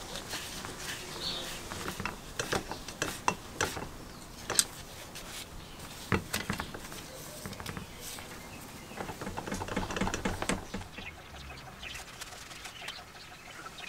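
The hose fitting on a foot tyre pump is tightened with a hex-bit tool and by hand, giving a run of sharp metal clicks and scrapes, with a denser cluster about nine to eleven seconds in.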